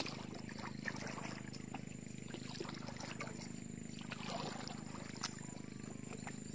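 A wooden canoe being paddled: the paddle dips and splashes in the water, with scattered light knocks against the hull, over a steady low hum.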